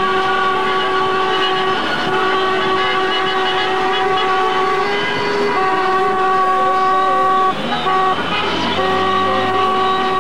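Car horns held down in long, steady blasts by a celebrating car convoy. One horn tone sounds almost without pause and breaks off briefly three times.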